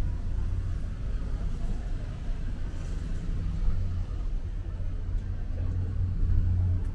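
A steady low rumble, with no distinct events standing out, typical of outdoor street ambience with vehicles.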